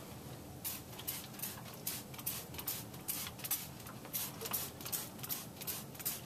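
Hand spray bottle squirting paint onto plaster rock castings: a quick run of short sprays, about three a second, starting about half a second in.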